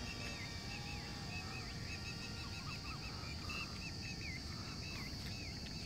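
Birds calling in a string of short, curving chirps over a steady high-pitched insect drone and a low rumble.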